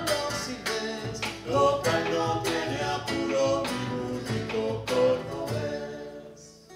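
Acoustic guitars strumming the closing instrumental bars of an Argentine folk song played live, dying away near the end.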